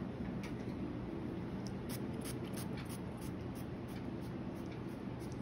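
Steady low room hum, with a run of faint light scratching and rubbing sounds in the first half.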